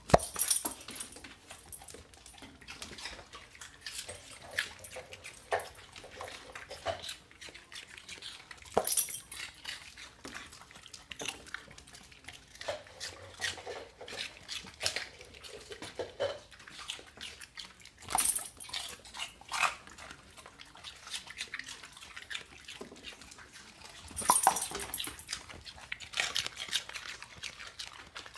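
Dogs crunching and chewing celery: a run of irregular snapping crunches and wet chewing, with louder bouts of crunching several times.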